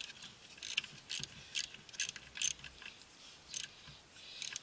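Socket ratchet clicking in short bursts, about two a second with a pause near the middle, as the brake caliper's mounting bolts are run in.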